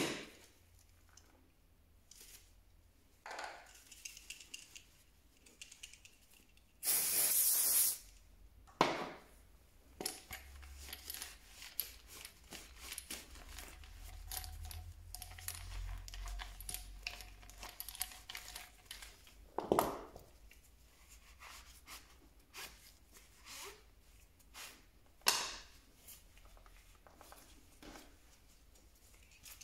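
Small clicks, taps and rubbing from hands cleaning a hammer drill, with a hissing spray burst lasting about a second about seven seconds in and a few shorter knocks later.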